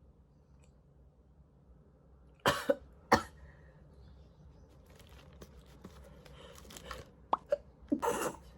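A person coughing twice in quick succession, set off by a nasal swab in the nostril, followed by small clicks and another short burst near the end.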